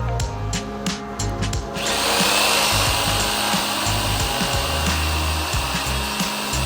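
Background music with a steady beat; about two seconds in, a power tool starts cutting and runs steadily over the music with a high whine, cutting the bed's aluminum strips to size.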